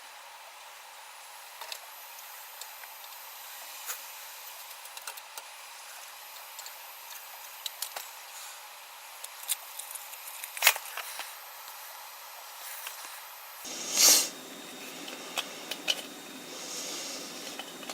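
Small scattered clicks and taps of hands working on an opened disk drive, with one brief louder scrape or rustle about fourteen seconds in, over a steady faint hiss.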